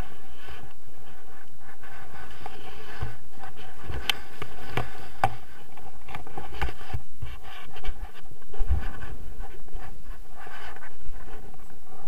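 Wind rushing over an action camera's microphone in paraglider flight, with uneven low gusts and scattered knocks and scrapes from the camera mount. The loudest gust comes about two-thirds of the way through.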